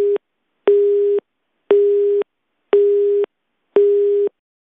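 Italian telephone busy tone on the line after the other party hangs up: one steady tone beeping about once a second, half a second on and half a second off, heard through the phone line. The beeps stop near the end.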